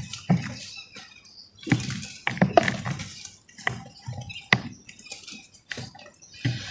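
Wet hands crumbling lumps of dry red dirt onto a heap sitting in muddy water: gritty crumbling with wet squishes and drips, coming in irregular handfuls about a second apart.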